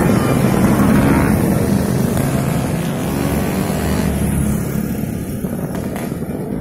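Several scooter engines running steadily on the move, heard from a riding scooter, getting slowly quieter as the others pull ahead.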